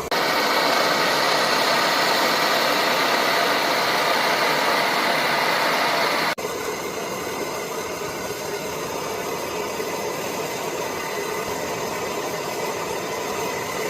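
Vintage liquid-fuel camp stove burners running after priming, giving a steady hiss: the burners have caught and are burning on their own pressure. The sound breaks off for an instant about six seconds in and carries on a little quieter.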